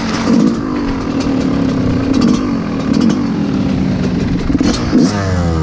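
Yamaha YZ125 two-stroke dirt bike engine being ridden, revs rising and falling with the throttle over rough ground, with scattered clatter and ticks. Near the end the revs drop away as the throttle is rolled off.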